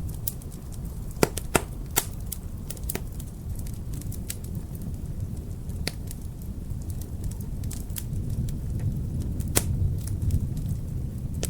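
Wood fire crackling with irregular sharp pops, the loudest in the first two seconds and one more about three-quarters of the way through, over a steady low rumble of wind and distant thunder that swells near the end.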